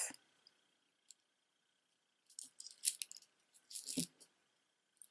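Beaded jewelry clicking and rattling as it is handled, with a few light clatters about halfway through and a small knock near the end as a piece is set down. Before that, near silence.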